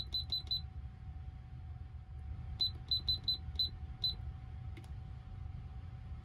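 Electronic push-button beeps, like keys pressed on a keypad: four quick high beeps, then about two seconds later six more, with a single click near the end. A steady low rumble from the moving train runs underneath.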